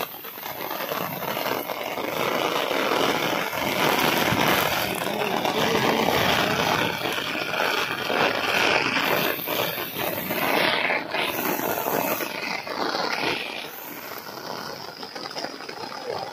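Heavy rain falling, a steady dense hiss, easing a little near the end.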